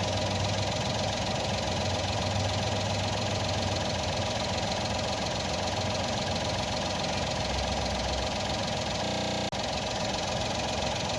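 Car engine idling steadily, heard close up in the open engine bay. About nine seconds in the sound changes briefly and cuts out for an instant, then the idle carries on.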